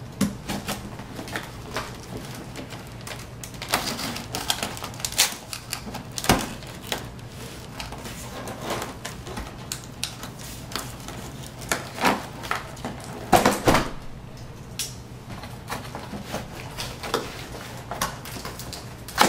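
Utility knife slitting a cardboard box, with irregular scraping and clicking as the blade runs along the cardboard and the box is handled and pulled open. A faint steady low hum sits underneath.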